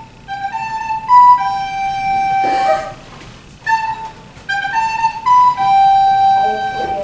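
Soprano recorder playing a short tune on just the notes G, A and B, the same phrase twice, each time ending on a long held note. A brief burst of noise falls between the two phrases.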